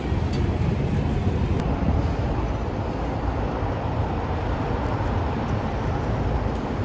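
Steady low rumble of city street noise, mostly traffic, at an even level throughout.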